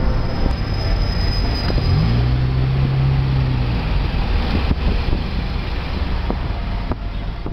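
Road vehicle noise: a loud low rumble with a haze of wind or road noise over it. About two seconds in, a low engine-like drone rises and holds for under two seconds, then fades back into the rumble.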